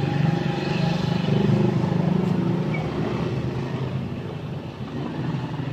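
A motor engine running, a steady low hum that is loudest in the first couple of seconds and eases off toward the end.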